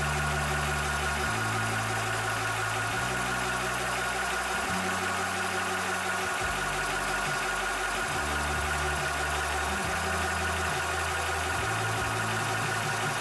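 Cobra high-pressure PCP air compressor running steadily while pumping, a constant mechanical hum with a steady high tone over it.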